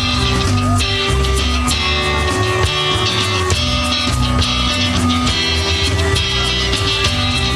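Rock band playing an instrumental passage with guitar and drum kit, without vocals.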